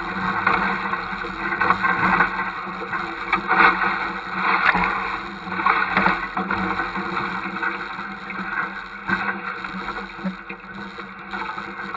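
An off-road vehicle's engine runs steadily while the vehicle drives through deep floodwater, its tires churning up water that splashes and sprays in repeated surges. The splashing eases in the last few seconds.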